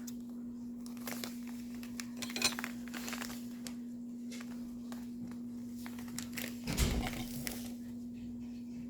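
Scattered rustling and light clicking of a bag of doll-weighting beads being handled and filled, with a louder bump about seven seconds in. A steady low hum runs underneath.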